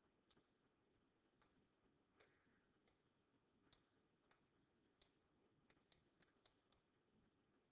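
Near silence with about a dozen faint, irregular clicks, coming quicker about six seconds in: a stylus tapping on a pen tablet while numbers are hand-written.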